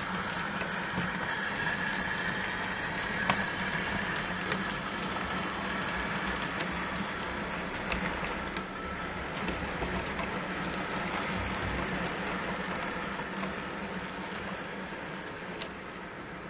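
OO gauge model locomotive's Hornby TTS sound decoder playing its engine sound through the loco's small speaker as the train runs, with scattered clicks of the model's wheels over the track, slowly getting quieter.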